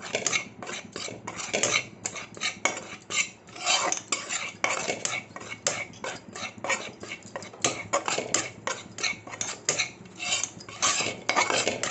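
Metal spatula scraping and stirring dry gram flour (besan) around a steel kadhai in a rapid, uneven run of strokes, several a second, as the flour is dry-roasted on a medium flame.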